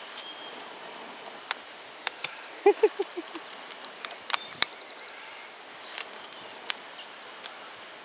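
Palm-fibre tinder bundle burning in the hand, crackling with sharp, irregular snaps over a faint steady background. Near the middle comes a quick run of about five short, low pitched notes.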